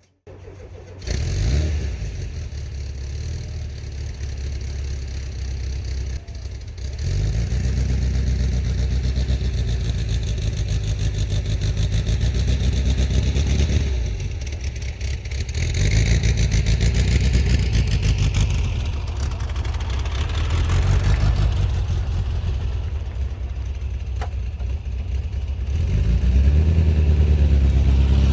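Air-cooled VW bay-window bus flat-four engine starting about a second in, then running and revving up several times.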